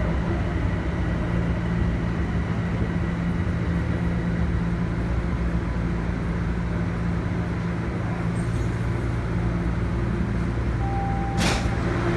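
Steady low hum inside a Toronto Rocket subway car standing at a station with its doors open, from the train's ventilation and equipment running. Near the end there is a brief beep, then a single sharp knock.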